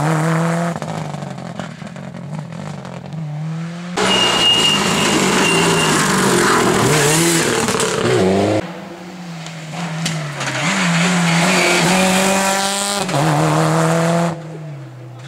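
Subaru Impreza rally car's flat-four engine revving hard and shifting gear as it passes at speed. It is heard over several short passes that start and stop abruptly, with cuts about four, eight and a half and fourteen seconds in.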